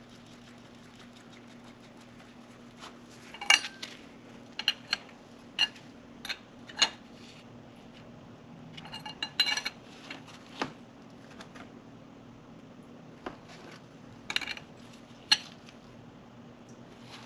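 Hand tools and small metal parts clinking and tapping while a new oil pressure sensor is fitted: sharp, irregular metallic clinks with a brief ring, some in quick little clusters, over a faint steady hum.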